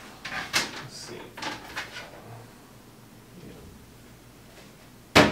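Handling noises: a few short scrapes and rustles in the first two seconds, then a single sharp knock near the end.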